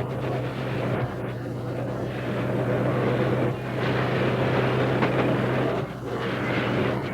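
A locomotive running: a steady low hum under a rushing rumble, the hum dropping away briefly about six seconds in.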